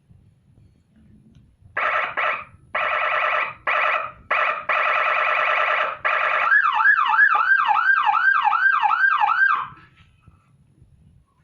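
HHS 80-watt electronic siren module sounding several buzzing horn blasts of uneven length. It then switches to a fast up-and-down yelp tone, nearly three sweeps a second for about three seconds, and cuts off sharply.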